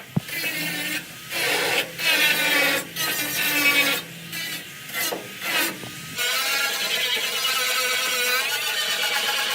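Tool working on a surface with a rasping, rubbing sound: a run of separate strokes, then about six seconds in a steady, unbroken run.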